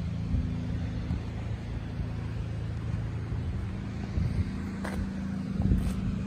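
A car engine idling steadily with a low, even hum. Two light clicks come near the end.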